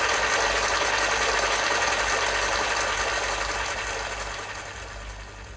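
Steady rushing noise from Rectilinear Research Highboy loudspeakers just after the music stops, fading out over the last couple of seconds, over a low steady hum.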